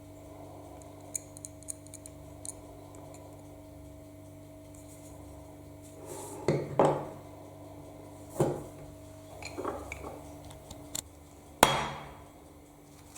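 Metal parts of an old Soviet doorbell knocking and clinking as they are handled and set down: a few light clicks at first, then several sharper knocks, each with a short ring, from about halfway in, the loudest near the end.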